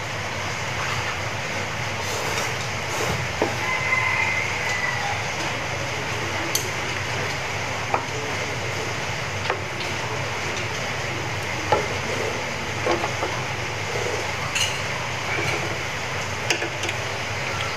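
Cooking oil heating in a non-stick frying pan, a steady hiss with scattered light ticks and pops, while a wooden chopstick dipped in it draws small bubbles as the oil comes up to frying heat.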